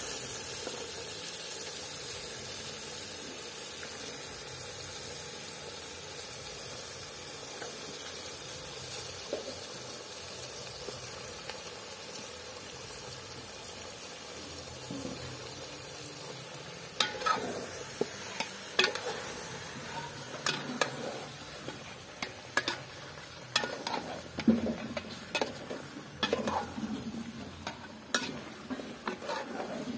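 Beef sizzling in hot oil in a metal cooking pot, a steady hiss. From about halfway, a metal ladle stirs the meat, knocking and scraping against the pot in irregular sharp clinks.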